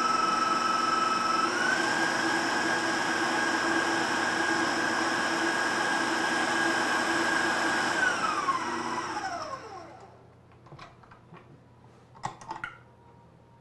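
KitchenAid stand mixer with its wire whip attachment whipping buttercream: a steady motor whine that steps up in pitch about a second and a half in, then winds down and stops after about eight seconds as the mixer is switched off. A few light clicks follow near the end as the whisk is unhooked.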